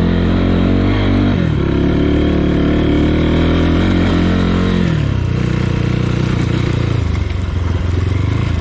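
Motorcycle engine running steadily under power, its pitch falling about a second in and again about five seconds in, then holding lower.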